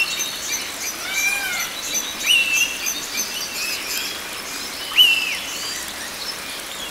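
Tropical forest birds calling over a steady hiss. One loud call, a quick upward leap held briefly and then dropping, comes three times about two and a half seconds apart, with other sliding calls and many short high chirps in between.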